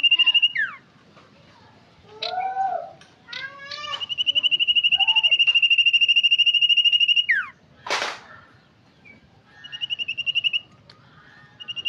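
Sirtu bird song used as a lure call: long, fast, even trills held on one high pitch, broken by shorter chirps and downward-sliding whistles. A brief hiss comes about eight seconds in.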